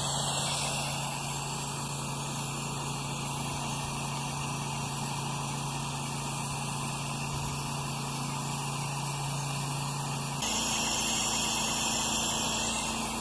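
Pressure washer running steadily, its engine hum under the hiss of the water jet spraying onto house siding. About ten seconds in, the hum shifts higher in pitch and the sound gets a little louder.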